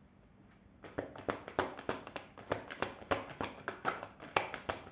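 A deck of tarot cards being shuffled by hand. The cards slap and click together in a quick, irregular run, several a second, starting about a second in.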